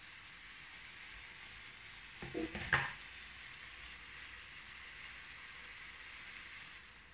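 Faint, steady sizzle of chicken cooking in a steel pot on an electric hot plate. About two and a half seconds in comes a short cluster of light knocks on the pot, ending in one sharper click, as potato wedges are set in place.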